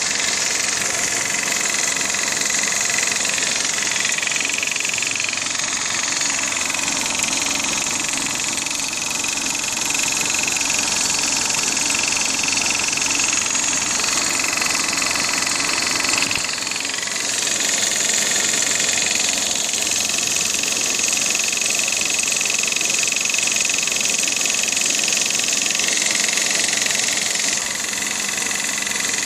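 Toyota 1ZZ-FE 1.8-litre four-cylinder engine running at idle with the automatic gearbox in Drive, with a knock whose cause the owner is asking about. A steady high whine runs with it and shifts in pitch a few times.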